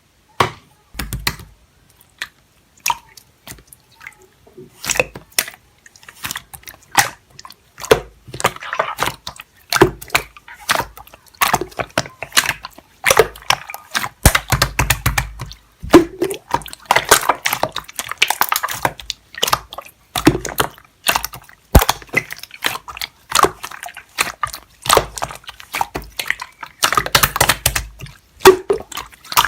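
Irregular wet clicks, squelches and crackles, coming in short flurries with brief pauses between them.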